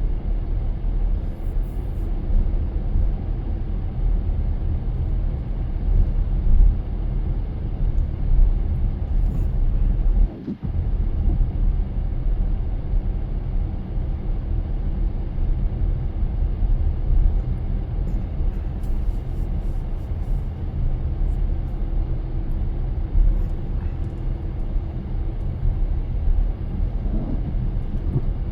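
Steady low rumble of a car being driven, engine and road noise, with a brief dropout about ten seconds in.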